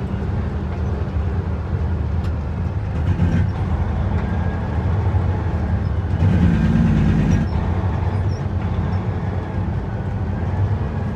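Heavy truck's diesel engine running steadily, heard from inside the cab, with road rumble as the truck drives down a dirt track. The engine note swells briefly a little over six seconds in.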